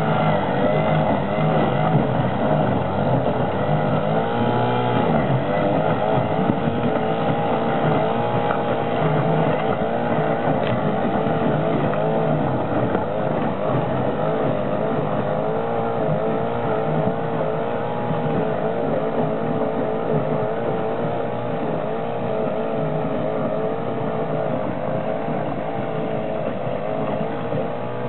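Small outboard motor running under load as it drives a boat through thin ice, its pitch wavering up and down. It fades slightly as the boat moves away.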